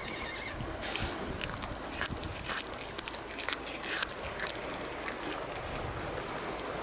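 A cat chewing raw flounder close up: a quick, irregular run of wet clicks and crunches as it bites and tears at the fish.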